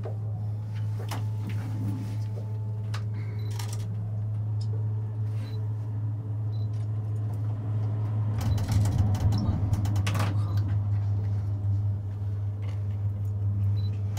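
Inside a moving gondola cable-car cabin: a steady low hum with scattered clicks and creaks. About eight to ten seconds in comes a burst of clattering and knocking as the cabin's grip runs over the sheave rollers of a support tower.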